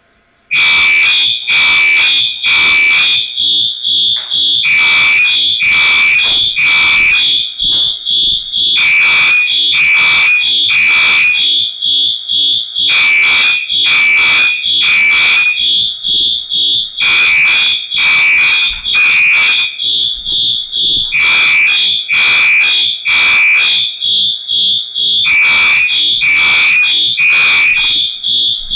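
Two fire alarm horns sounding together on a test drill, starting about half a second in: one pulsing rapidly in march time, the other sounding the temporal code-3 evacuation pattern of three blasts and a pause, repeating.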